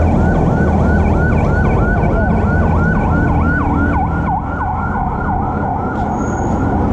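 Electronic siren sounding in a fast yelp, about four swoops a second, over a steady rumble of street traffic.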